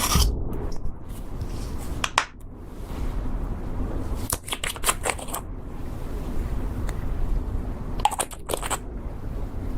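Slime being squeezed, stretched and folded by hand, with a low squishing rustle and clusters of sharp sticky clicks and pops as air pockets burst.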